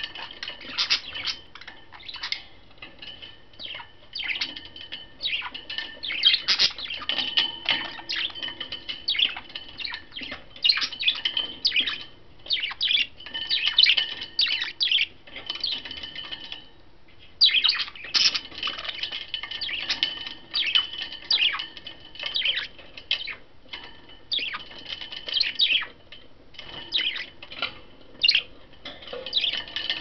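A small flock of budgerigars chirping and chattering continuously in rapid, high-pitched bursts, with a brief lull a little past halfway.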